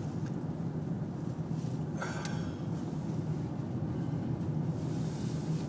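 Steady low rumble of a car being driven, heard from inside the cabin. A brief click comes about two seconds in, and a short hiss near the end.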